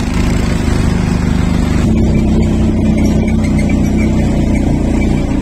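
Quad bike (ATV) engine running steadily as it is ridden over a rough, rocky track. A rushing hiss over the engine drops away about two seconds in, leaving the engine note plainer.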